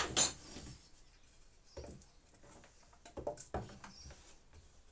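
Pieces of wood being handled and picked through: a loud clatter right at the start, then a few lighter knocks and scrapes.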